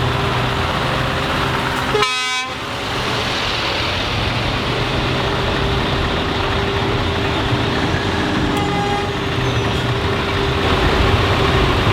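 Truck air horns sounding with steady held tones over running truck engines, with a brief break about two seconds in.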